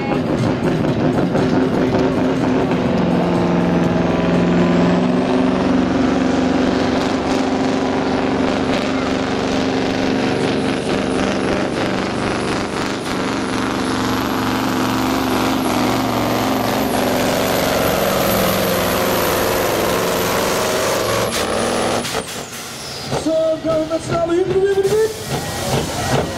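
Iveco pulling truck's diesel engine running hard under full load while it drags a weight sled, with a high turbo whistle that climbs over the first few seconds, holds, and falls away about 22 s in as the pull ends and the engine drops off.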